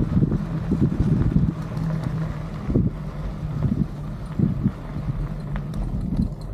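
Wind buffeting the microphone in low, uneven gusts.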